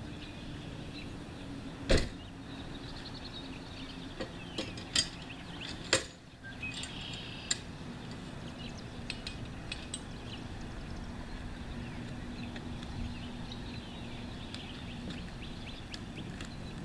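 A hitch-mounted canoe loader's metal parts being handled and set: a few sharp knocks and clicks, the loudest about two seconds in, with more over the next five seconds. Birds chirp in the background over a steady low hum.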